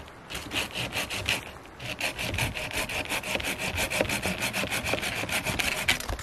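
Hand saw cutting through a dead log: a few slow strokes, a short pause, then quick, even back-and-forth strokes from about two seconds in, stopping just before the end.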